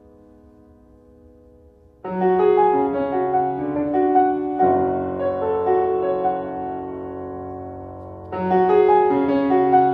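Solo grand piano playing: sustained notes fade for about two seconds, then a loud flurry of notes comes in suddenly, a low bass note joins near the middle, and a second loud entry follows near the end.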